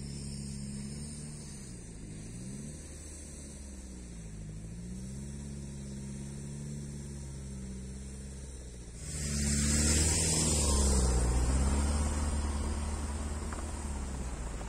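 Car engine running as the car drives, its pitch dipping and climbing again twice. About nine seconds in, a loud rushing noise sets in over it and carries on.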